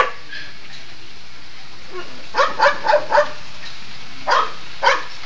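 Detection dogs barking in short sharp barks: one bark at the start, a quick run of four about two seconds in, then two more near the end.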